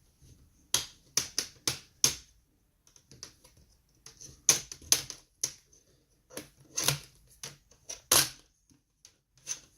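Plastic retaining clips of an Acer Aspire E5-575 laptop's LCD bezel popping loose one after another as the bezel is pried off with a plastic pry tool: sharp, irregular clicks in short runs of several each.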